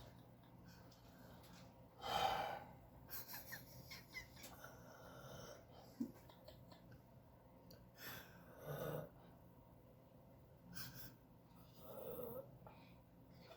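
Elderly man snoring in his sleep: separate rasping snores every few seconds, the strongest about two seconds in.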